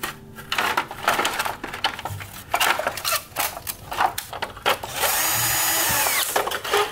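Irregular clicking and scraping of tool work on the fan's parts. Then a small power tool, such as a drill, runs for about a second and a half and whines down as it stops.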